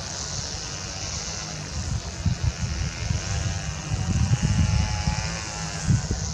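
Jet airliner engines running, with a steady high hiss, a faint whine that shifts slowly in pitch, and an uneven low rumble.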